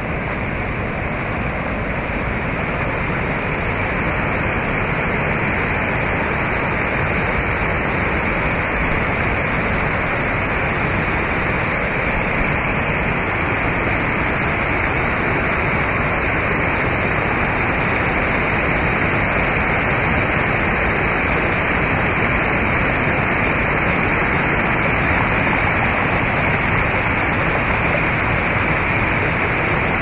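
Rushing river water: a steady, loud rush that swells slightly over the first few seconds.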